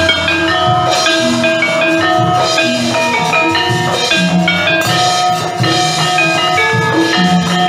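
Gamelan ensemble playing: struck bronze metallophone notes ringing in overlapping patterns over a hand drum.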